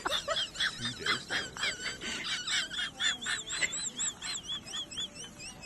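A crowd of small birds peeping: rapid, high-pitched calls overlapping several times a second, with a few clearer arched peeps standing out from about three seconds in.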